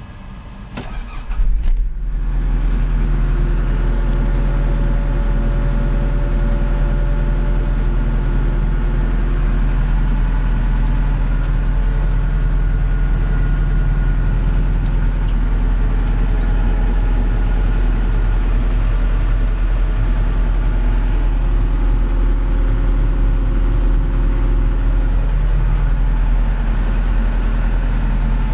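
John Deere 310G backhoe's four-cylinder diesel engine cranking and starting about a second in, then idling steadily.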